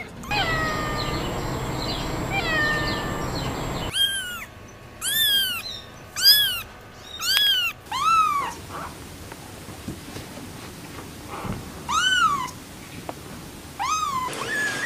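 Very young kittens meowing. A few soft mews come first, then about seven loud, high, thin mews, each rising then falling, roughly one a second, with a longer gap before the last two.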